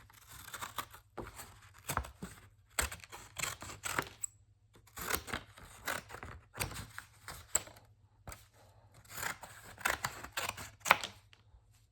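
Freshly sharpened scissors cutting graph paper: a run of short snips in several clusters with brief pauses between.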